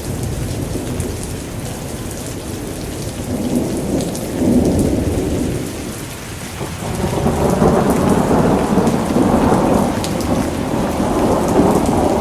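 Steady rain falling through a thunderstorm, with rolling thunder. One rumble swells about four seconds in, and a longer, louder one builds from about seven seconds in.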